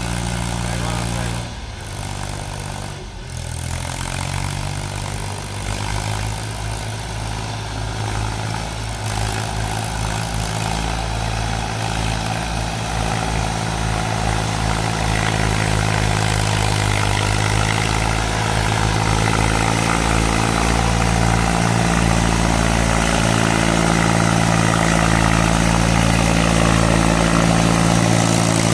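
Heavy diesel engine running steadily, with two brief dips in the first few seconds, then working harder and getting gradually louder, as when a vehicle is pulling a loaded trolley out of a muddy pit.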